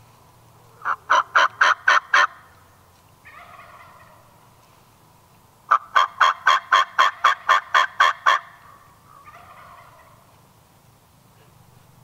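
Wild turkey hen yelping: a run of about seven evenly spaced notes, then a longer run of about a dozen, roughly four notes a second, with softer turkey calls between the runs.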